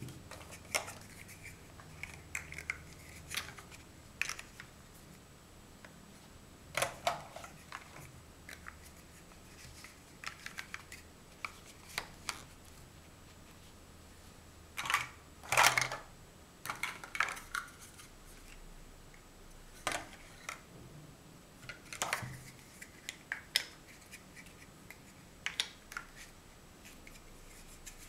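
Large plastic Mega Bloks First Builders blocks being handled, set down and snapped together: irregular hollow clicks and clacks, the loudest cluster about halfway through.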